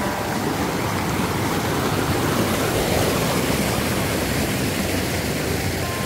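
Mountain stream rushing over a small cascade through a narrow rock chute: a steady, loud, even rush of water.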